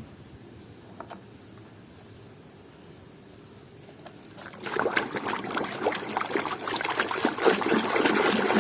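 Water splashing and trickling as a muddy toy is rinsed clean. The first half holds only a few light clicks, then the splashing starts about halfway through and carries on busily.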